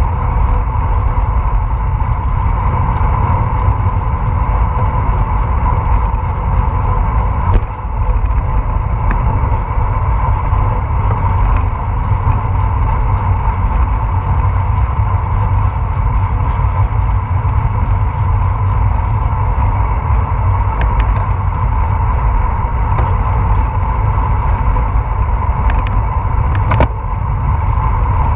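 Wind and road rumble on a bicycle-mounted action camera's microphone during a ride, with a steady mid-pitched hum. A few sharp clicks stand out, one about a third of the way in and two near the end.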